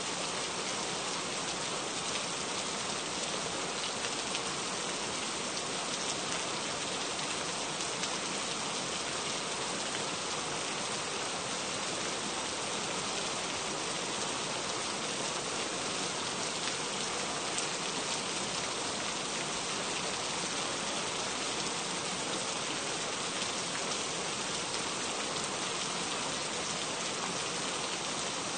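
Steady rain falling: an even hiss of many small drops that keeps the same level throughout.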